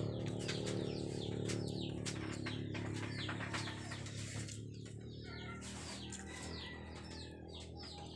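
Small birds chirping repeatedly in short, falling chirps over a steady low hum.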